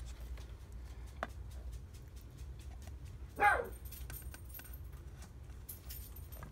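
A Savannah monitor eating turkey from a glass bowl: a scatter of small clicks and snaps from its jaws and teeth on the meat and the bowl. About halfway through, a short cry falling in pitch stands out as the loudest sound.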